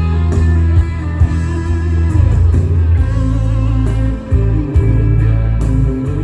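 Live band music: electric guitar over bass and drums, with a rock feel and regular drum and cymbal hits.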